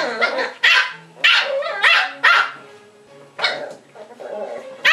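Wire fox terrier puppies, about seven weeks old, yapping in play while wrestling: a string of short, high-pitched barks about every half second, with a pause of about a second partway through.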